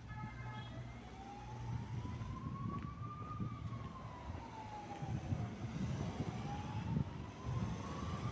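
Emergency-vehicle siren in a slow wail, rising and falling in pitch twice, over a low uneven rumble. A pulsing beeping tone stops within the first second.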